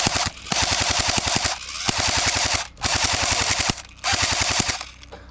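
Airsoft gun firing on full auto in short bursts of rapid, evenly spaced shots, each burst under a second, five in a row with brief pauses between.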